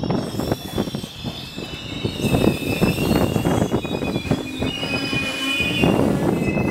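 Amtrak Superliner bilevel passenger cars rolling slowly into the station, a rumble with short knocks from the wheels on the rails. From about two seconds in, steady high-pitched squealing from the wheels joins in and holds.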